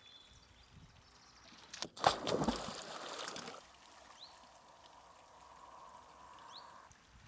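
A person jumping into a swimming pond: a couple of sharp knocks, then a loud splash about two seconds in, with water churning for about a second and a half before it settles to quieter lapping.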